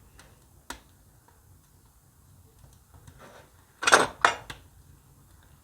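Cast-iron stove door hardware clanking: a light click, then two loud, sharp metallic clatters close together about four seconds in as a door of the brick stove is worked open to let in air.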